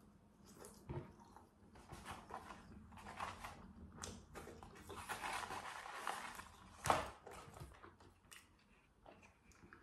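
Someone chewing and eating French fries, with small clicks and handling noises from the paper fries carton and sauce cup, and one sharp tap about seven seconds in.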